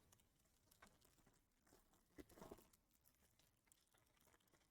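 Near silence, with a short cluster of faint rustles and clicks a little past two seconds in, from trading cards and their packaging being handled.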